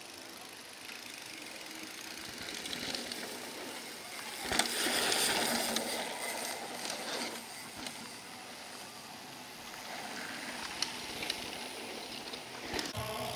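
Downhill mountain bike riding past on a dirt track: its tyres rolling and scrubbing over the dirt, loudest for a second or two about a third of the way through. A few sharp clicks come near the end.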